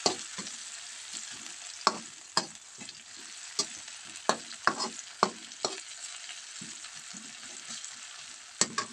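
Sliced garlic, shallots and chili sizzling steadily in hot oil in a wok while being stir-fried with a metal slotted spatula. The spatula gives a scatter of sharp scrapes and knocks against the pan, with a pause in them for a couple of seconds before one last knock near the end. This is the stage of frying the aromatics until fragrant.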